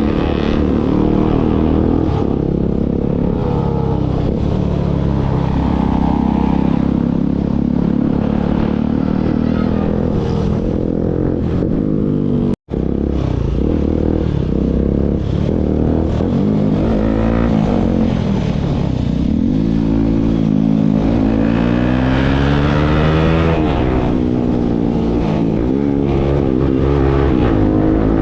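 Bajaj Pulsar NS single-cylinder motorcycle running on an aftermarket Akrapovic full-system exhaust, its engine note rising and falling as it is revved and ridden. The sound cuts out for an instant about halfway through.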